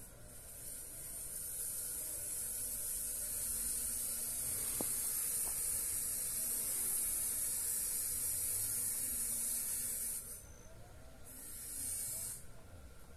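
A cicada buzzing in a high, steady hiss that swells in over the first second or two and cuts off about ten seconds in. It comes back briefly for about a second near the end.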